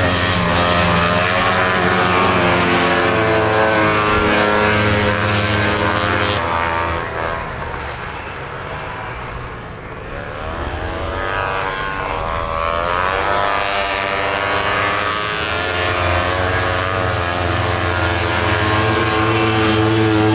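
Several vintage racing snowmobiles running flat out. The engines are loud and steady at first, fade as the sleds draw away about seven seconds in, then rise in pitch and loudness as more sleds come closer near the end.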